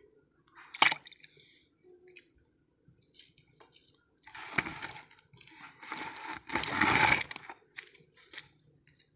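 A single sharp knock about a second in, then water splashing and sloshing in two stretches later on, the second louder.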